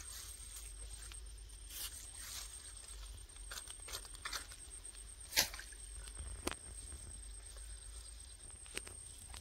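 Handling noise: scattered rustles of a cloth fish bag and grass, with a few sharp clicks, the loudest about five and a half seconds in. A steady thin high whine sits underneath.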